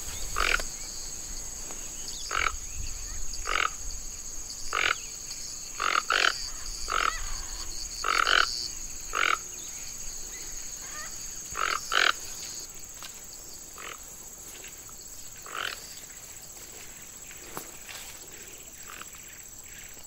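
Toco toucans giving short, hoarse croaking calls, a dozen or so spaced about a second apart and thinning out after about twelve seconds. Behind them runs a steady high insect whine.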